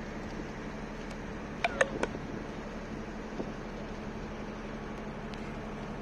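Houseboat's engine running steadily with an even hum. Three sharp clicks come close together a second and a half in.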